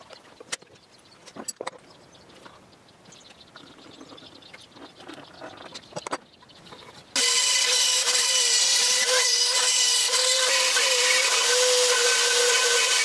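Faint clicks and light handling sounds of a pencil and tape measure marking out wood, then about seven seconds in a rotary tool in a plunge router base starts up loud. It gives a high, steady whine that wavers slightly in pitch as its bit cuts into the wooden lid.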